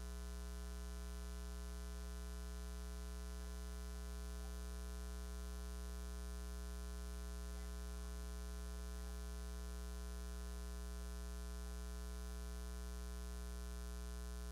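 Steady electrical mains hum: a low, unchanging buzz with a stack of evenly spaced overtones.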